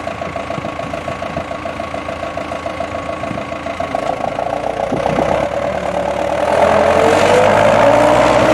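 Engine of earth-moving machinery running with a rapid, even pulse, growing louder about four seconds in and louder again from about six and a half seconds, as it works harder and its pitch shifts.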